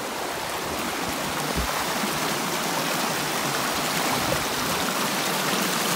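Shallow stream running over rocks in small riffles: a steady rushing and burbling of water that grows slightly louder toward the end.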